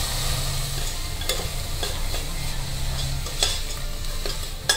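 Chopped vegetables (carrot, beans, potato, onion and mint) sizzling in oil in a stainless steel pot as they are stirred with a ladle, with a few sharp scrapes of the ladle against the pot. This is the sautéing of the vegetables for vegetable brinji rice.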